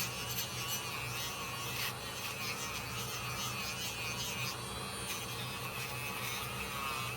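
Small electric rotary tool with a wire brush running steadily, buzzing as it brushes the blade of a 1973 Case XX jackknife, its pitch wavering a little under load.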